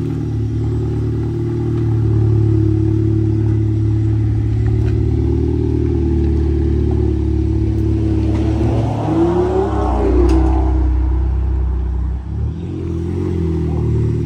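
Volkswagen Golf R's turbocharged four-cylinder engine running at low revs, with a brief rev that rises and falls about nine to ten seconds in.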